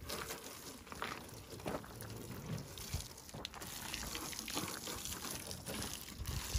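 Water from a garden hose spraying and splashing onto a pickup truck's body and wheel, a steady hiss with a few faint ticks.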